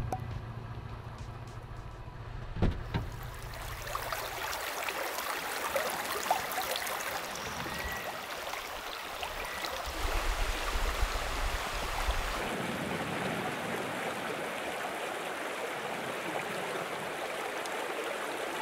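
Shallow stream running over stones: a steady, even wash of water noise. A low rumble and a single sharp knock come in the first few seconds, before the water sound takes over.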